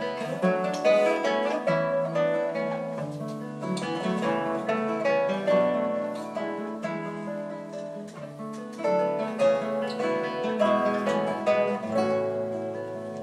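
Two nylon-string classical guitars playing a duet, plucked fingerstyle in a continuous flow of notes over sustained bass notes.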